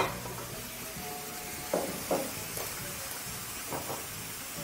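Bacon slices sizzling in a very hot frying pan, a steady hiss, with a few light knocks of utensils against the pan.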